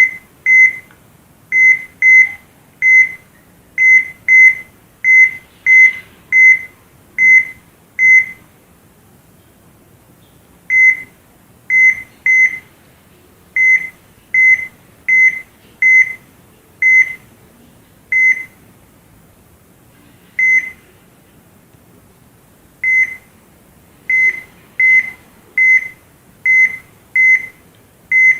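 Heart monitor (electrocardiogram) beeping: short, high, single-pitched beeps, one per heartbeat, in an uneven rhythm. Some stretches run about two beeps a second, and there are pauses of up to two and a half seconds, the longest about eight seconds in.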